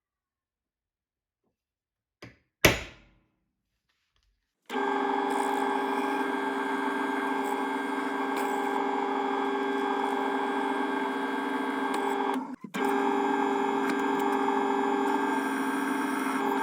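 Two sharp knocks on the bench, then a power tool starts and runs steadily with a hum of several held tones. It drops out for a moment near the end and runs on.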